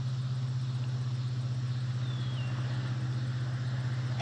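A steady low motor hum that holds one pitch.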